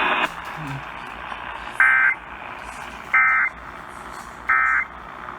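Emergency Alert System end-of-message data bursts: three short, identical squawks of digital data tones, a little over a second apart. They mark the end of the alert and sit over a steady radio hiss.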